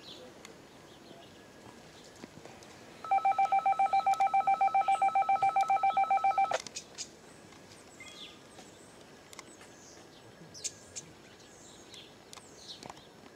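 A rapid run of identical electronic beeps, about eight a second at one steady pitch, starting about three seconds in and stopping after some three and a half seconds. Faint short bird chirps before and after.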